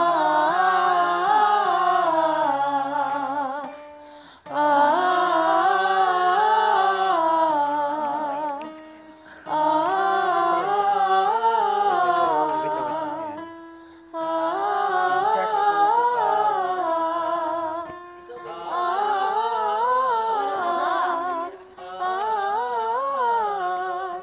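Voices humming a wordless tune a cappella, in phrases a few seconds long with short breaths between them, as singing practice.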